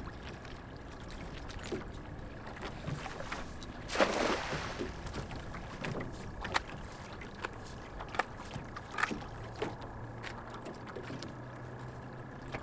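A cast net thrown from a small boat, its weighted rim landing on the water in one splash about four seconds in. Small knocks and rustles follow as the hand line is drawn back in.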